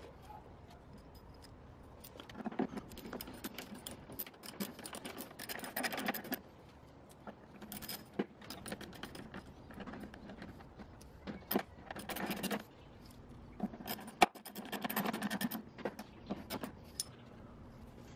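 Small ratchet socket driver clicking and rattling in several short bursts while turning the screws of a BMW E90 headlight's ballast, with knocks and scrapes from the plastic headlight housing being handled.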